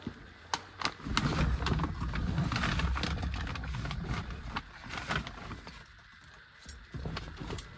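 Scattered knocks, clicks and rustling of someone climbing into a car's driver's seat and settling behind the wheel, with a low uneven rumble of movement for the first few seconds. The engine is not running.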